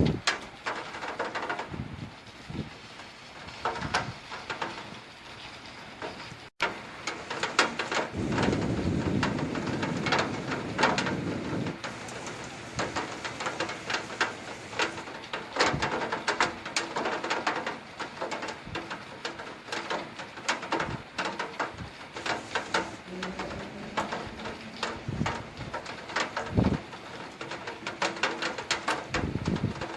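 Rain striking hard surfaces: a dense run of irregular taps and knocks over a steady hiss of rainfall.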